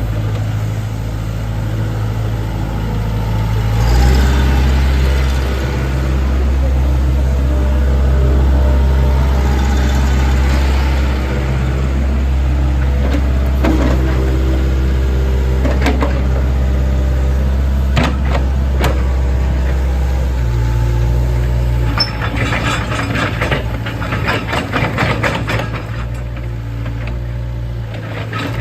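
Hitachi ZX70 excavator's diesel engine running, stepping up to higher revs about four seconds in as it works and settling back to a lower speed near the end. Metal clanks and clicks come in over the last several seconds.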